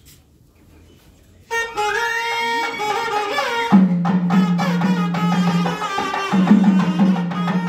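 Temple nadaswaram music starting about one and a half seconds in: a reed pipe playing a melody with sliding notes. About two seconds later a steady low drone and thavil drum strokes join it, the music that accompanies the arati.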